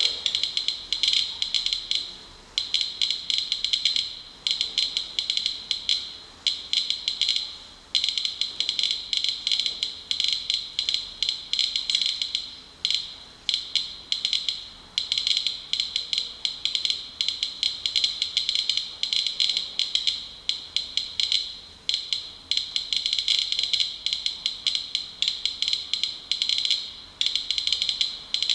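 Inspector Geiger counter clicking fast and irregularly, many counts a second in uneven clusters, as it measures rain-soaked tissue. The count rate is several times background, which the owner takes for radon decay products washed out by the rain.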